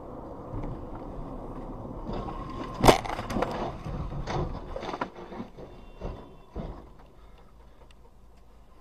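Car crash at highway speed, heard from inside a following car: steady road noise, then a loud bang about three seconds in and a run of further knocks and clatter as the car rolls over. The noise dies down near the end.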